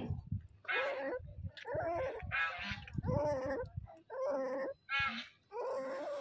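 Puppy whining in a string of short, wavering cries, one after another, each about half a second long.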